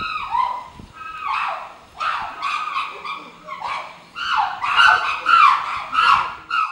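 Chimpanzees screaming: a run of loud, high, wavering cries, about two a second, building louder in the last few seconds and cutting off suddenly at the end.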